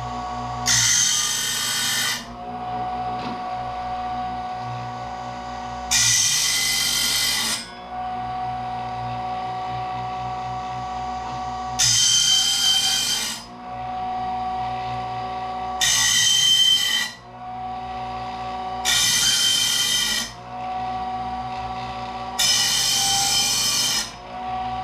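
Harbor Freight 120-volt circular saw blade sharpener running with a steady motor whine, its grinding wheel pressed against the saw blade's teeth one at a time: six harsh grinding passes of about a second and a half each, a few seconds apart, as each tooth face is sharpened.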